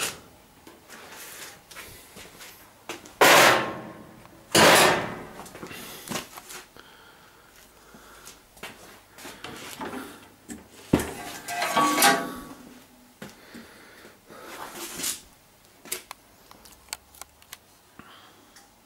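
Side panels of a V-Flash 3D printer cabinet being slid off and handled: two loud sliding scrapes a few seconds in, then a sharp click and a rattling scrape with a brief ring about eleven to twelve seconds in, and another softer slide a few seconds later.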